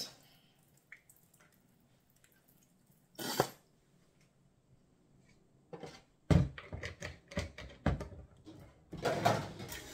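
Handling noise at a stainless-steel kitchen sink as a plastic bottle of vinegar and a plastic bowl of raw fish are moved about: a short rustle, then a string of knocks and clatters. Near the end the kitchen tap starts running.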